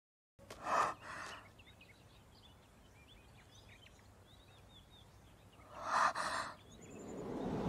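A woman's short, sharp breaths, two close together about half a second in and two more around six seconds in, over faint birds chirping. A swell of music starts to rise near the end.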